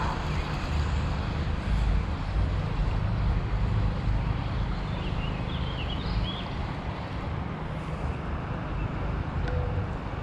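Wind buffeting the microphone: a steady, gusting low rumble over a constant hiss.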